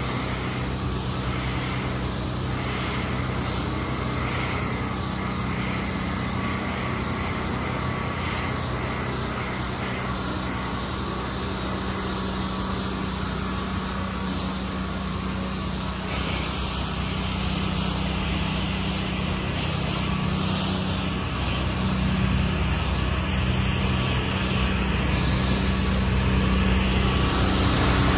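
Pressure washer running steadily, the engine's hum under the hiss of the high-pressure water spray. The spray hiss changes abruptly a little past halfway.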